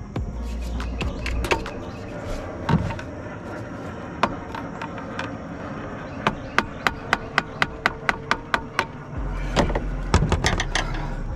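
A hammer tapping a screwdriver used as a chisel against the stuck plastic fuel filter housing cap of a Ford 6.0 Powerstroke diesel, breaking the cap off in pieces. The taps come sharp and short: scattered at first, then a steady run of about ten at roughly four a second past the middle, and a quick cluster near the end.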